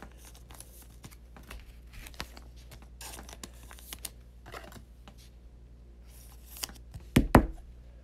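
Trading cards being slid into plastic penny sleeves and a rigid plastic top loader: light scraping, rustling and ticking of card against plastic. A sharp double clack of plastic a little after seven seconds is the loudest sound.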